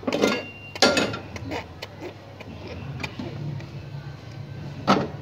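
Iron tawa and an aluminium cooking pot knocking and scraping on a gas stove as they are set down, the pot being placed on the griddle to steam the pulao on dum. Sharp clanks come about a second in and again near the end.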